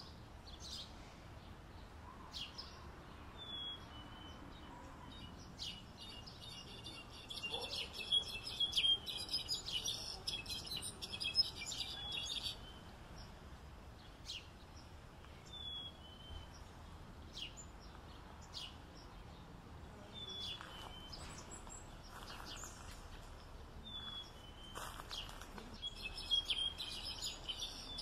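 Goldfinch song: a long burst of rapid, tinkling twitter about seven seconds in and another near the end, with scattered short call notes between, over faint steady background noise.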